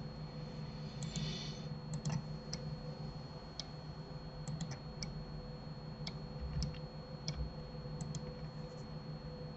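Scattered clicks of a computer keyboard and mouse at irregular intervals, a few per second, over a steady low hum.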